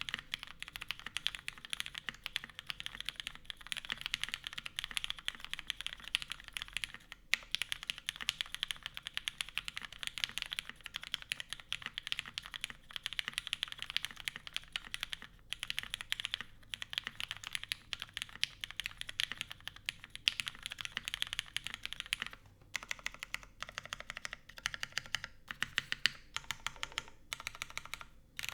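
Steady fast typing on a custom mechanical keyboard with lubed Cherry MX Black linear switches, GMK keycaps and a full aluminium plate in an O-ring mount. A few short pauses break it, and near the end the keystrokes become slower and more spaced out.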